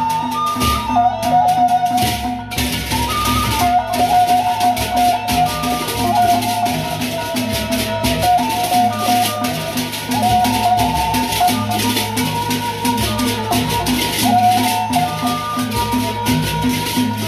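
A Sasak gendang beleq ensemble playing a traditional gending. Many pairs of hand cymbals clash in a fast, dense shimmer over a ringing melody on small kettle gongs, with a steady beat from the large barrel drums and gongs.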